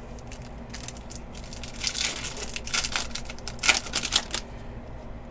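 Trading-card pack wrapper crinkling as it is handled and opened, in a cluster of crackly rustles from about two to four and a half seconds in.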